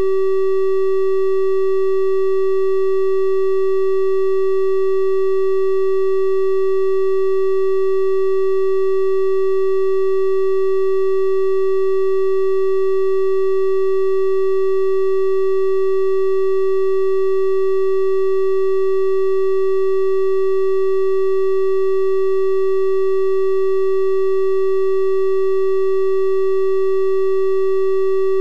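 Synthesized 384 Hz triangle-wave tone held at one steady pitch and level, a pure electronic hum with faint higher overtones.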